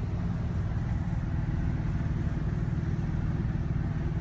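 Late-1960s Chevy C10 pickup cruising steadily, heard from inside the cab: a steady low engine and drivetrain rumble, with a driveshaft that has a freshly replaced U-joint.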